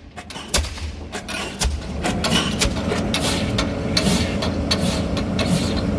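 Diesel pile hammer driving a concrete pile: repeated sharp metallic impacts over the steady low running of the piling rig's engine.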